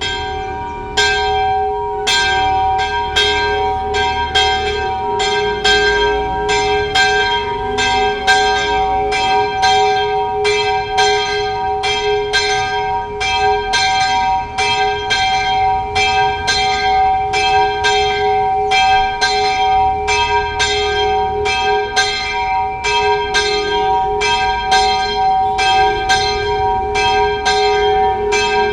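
Old church bell, brought from Germany in 1863, being rung steadily at about two strikes a second. The strikes start about a second in, and its ringing tone carries on unbroken between strokes.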